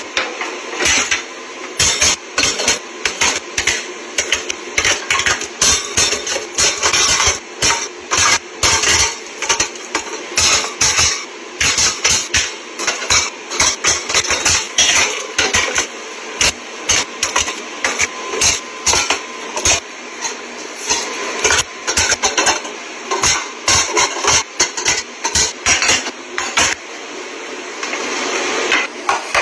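Dense, rapid clatter and knocking of tin cans and containers being handled and set onto wire pantry shelves, over a steady hiss.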